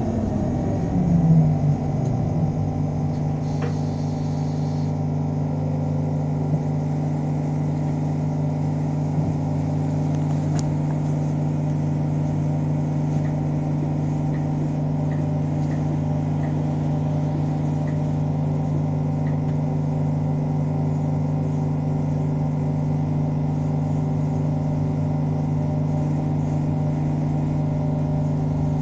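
Electric city bus standing at a stop, its on-board machinery giving a steady hum of several held tones. A whine falls in pitch over the first second or two, then settles into the level drone.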